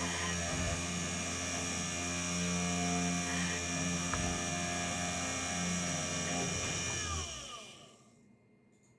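3018 CNC machine's spindle motor running at speed with a steady whine and high hiss, then spinning down about seven seconds in; its pitch falls away within about a second.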